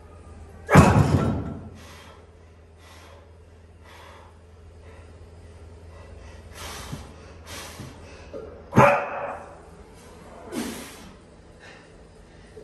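Heavily loaded barbell set down onto lifting blocks during block pulls: a loud thud of the plates about a second in and another near nine seconds in, with a smaller one soon after. Between them, heavy breathing and sharp exhales between reps.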